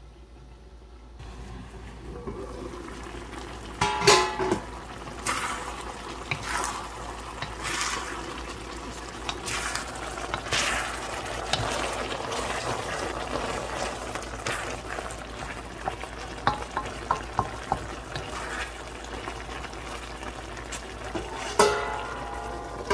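Chicken bubbling and sizzling in its own juices in a stainless steel pan, stirred with a wooden spatula that scrapes and taps the pan. A metal pan lid clanks and rings about four seconds in and again near the end.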